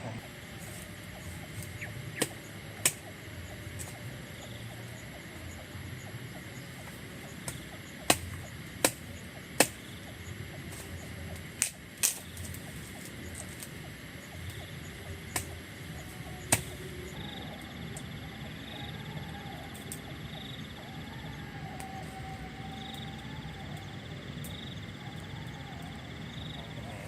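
Sharp knocks, about nine of them, some in quick pairs, spread over the first half over a steady outdoor background; in the second half a faint high call repeats about once a second.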